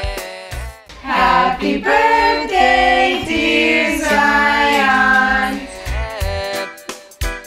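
Music: a song with a deep bass beat. About a second in, the beat drops out for a sung vocal passage, and the bass beat comes back near the end.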